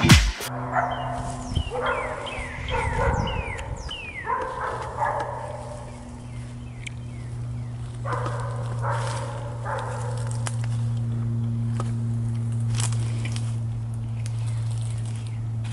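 Dogs barking in bursts, for the first five seconds and again about eight seconds in, over a steady low hum.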